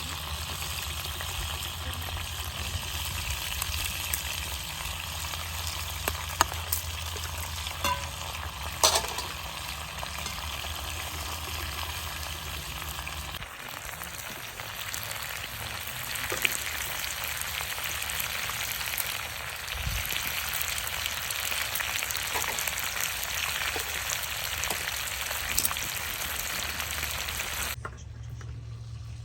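Food frying in a pan, with a steady sizzle and a few sharp clicks of a utensil against the pan. The sizzle cuts off suddenly near the end.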